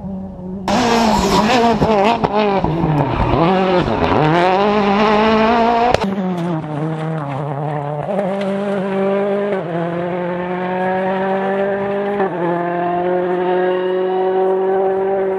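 Rally cars' 1.6-litre turbocharged four-cylinder engines at full stage pace. First a car passes close at high revs, its note swooping up and down. Then another accelerates hard out of a hairpin, revs climbing steadily and broken by quick upshifts.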